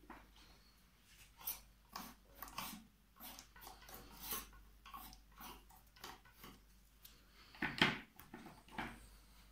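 Short scraping strokes of paint being worked onto paper, coming irregularly about once a second, the loudest close to the end.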